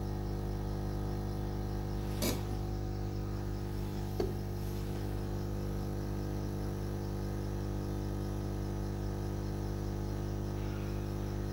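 Hot-air rework gun running with a steady hum as it heats a voltage regulator to desolder it from a TV motherboard, with two faint clicks about two and four seconds in.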